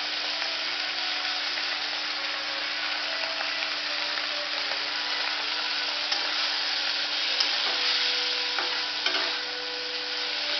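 Moringa leaves sizzling as they fry in a pan of oil and tomato-onion masala, with a few light scrapes of a spatula stirring them from about halfway on. A faint steady hum runs underneath.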